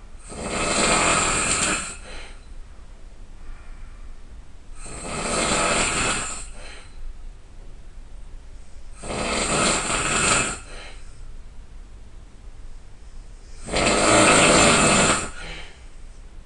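A person snoring very loudly: four long snores about four seconds apart, each lasting one and a half to two seconds, with much quieter breathing between them.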